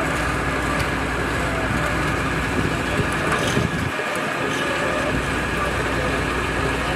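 Steady road traffic noise with a low rumble, vehicles going by on the road.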